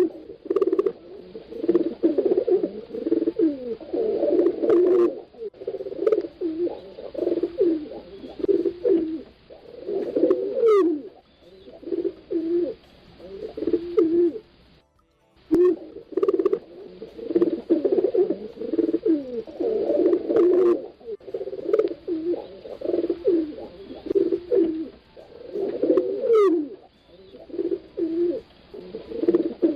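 Several pigeons cooing at once, low throaty coos overlapping almost without pause and breaking off briefly about halfway. Twice, a short high rising note cuts through.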